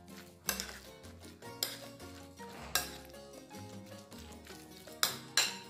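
Metal spoon stirring a raw ground-meat mixture in a bowl, scraping and clinking sharply against the bowl's side about five times, over soft background music.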